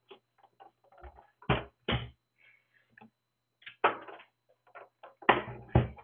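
The metal case of a Hikvision DS-7716NI-E4/16P network video recorder knocking and clunking on a wooden desk as it is lifted and turned, with small clicks and rattles between. The loudest knocks come about a second and a half in, again just before two seconds and near four seconds, and twice in quick succession near the end.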